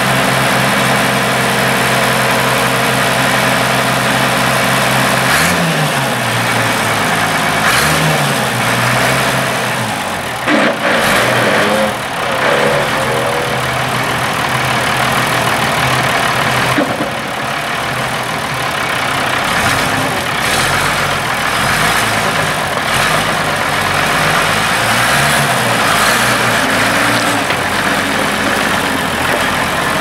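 Allis-Chalmers 2800 six-cylinder diesel engine of a 1970 Allis-Chalmers 918 backhoe idling steadily, then revving up about five seconds in and again a couple of seconds later, and running at changing speed as the machine drives. A few short knocks come around the middle.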